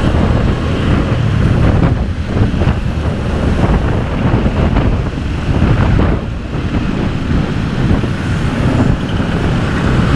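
Wind buffeting the microphone over the noise of a moving vehicle, a loud, uneven low rumble.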